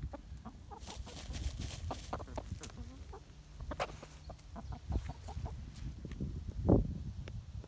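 Chickens clucking softly and irregularly while dust bathing, among short scratching and rustling noises, with a louder brief burst of sound near the end.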